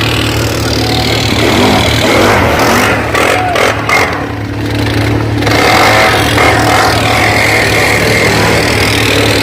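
Off-road vehicle engine running under throttle on a trail, with mechanical and track noise. The engine eases off briefly about four seconds in, then picks back up.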